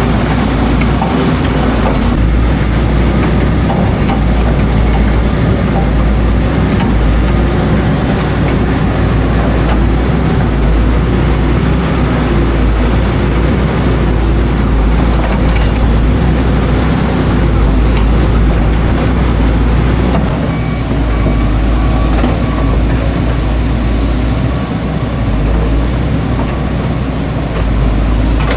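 Loud, steady low rumble of heavy engine noise, with no break and little change.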